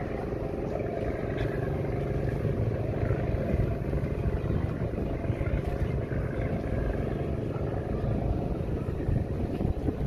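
An engine running steadily, with a constant low rumble underneath.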